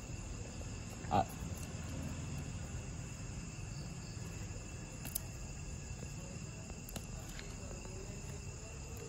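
Crickets chirring steadily in the background, with a few faint clicks and rustles from a phone box being handled and its seal tabs peeled. A brief, louder short sound about a second in.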